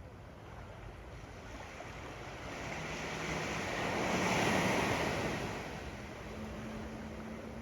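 Ocean waves washing up onto a sandy beach: one wave swells to a peak about four to five seconds in, then fades back into a steady hiss of surf.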